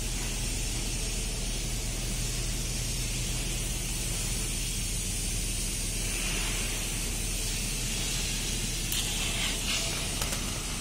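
TIG (gas tungsten arc) welding arc burning on steel under argon shielding gas: a steady hiss over a low hum, with a few faint clicks near the end.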